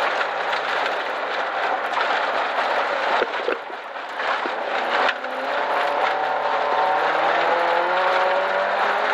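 Rally car engine with loose gravel rushing under the tyres, heard inside the cabin. About three seconds in the engine drops off, with a few sharp knocks, as the car slows for a chicane. From about five seconds the engine pulls again, its revs climbing steadily.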